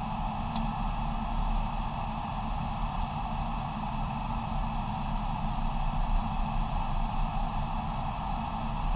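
Steady airliner flight-deck noise in flight on approach: rushing airflow around the windshield over a constant low rumble and hum.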